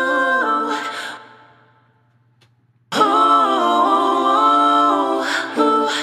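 A cappella singing with long held notes that fade away about two seconds in. After a short silence, a new held phrase comes in about a second later.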